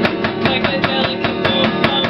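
Acoustic guitar music played fast, with quick, even strokes about eight a second over ringing chords.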